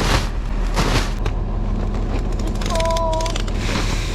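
Diesel tractor engine running steadily at idle, with a few light knocks early on and a brief two-note tone about three seconds in.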